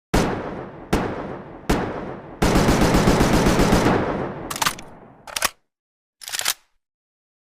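Makeshift sound effect imitating AKM assault rifle fire: three single shots about a second apart, each with a ringing tail, then a full-auto burst of about ten rounds a second lasting under two seconds, followed by three short cracks.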